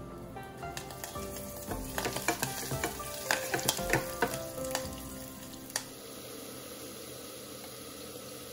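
Tempering sizzling in hot coconut oil in a small stainless steel saucepan, with dry red chillies and curry leaves spitting and popping while a wooden spatula stirs. The crackling is busiest from about two to five seconds in, then settles into a steady sizzle.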